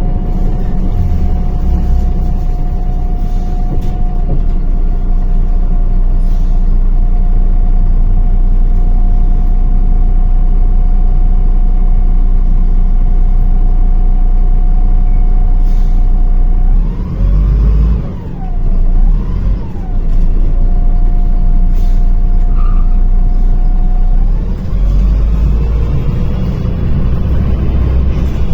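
MAZ-105 city bus under way, heard from aboard: a steady engine drone with a constant whine over it. About two-thirds of the way through, the sound dips and the whine slides down and back up twice before settling again. A few short, sharp hisses of the air brakes come here and there.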